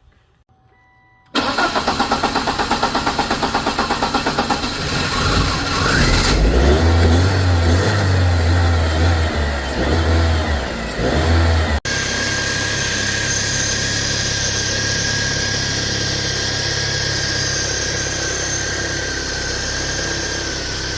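BMW E36 engine being started: the starter cranks in a fast pulsing rhythm for about three seconds, then the engine catches and is revved up and down several times. After a break it settles into a steady idle with a thin high whine over it.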